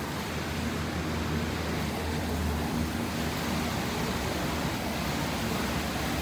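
Assault air bike's fan flywheel whooshing steadily as it is pedalled and pushed hard. The rush builds over about the first second, then holds even.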